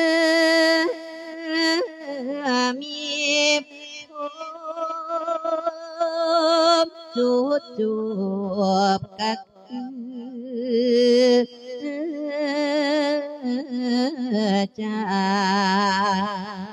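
A Thai Buddhist monk chanting a sermon in verse in a melodic, sung style: long held notes with a wide wavering vibrato and sliding pitch, in phrases with short breaths between them.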